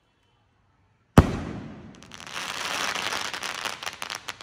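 Sony Vinayaga Silver Drops 2-inch sky shot shell bursting overhead: one sharp bang about a second in, then a dense crackling that swells and thins into scattered separate pops near the end.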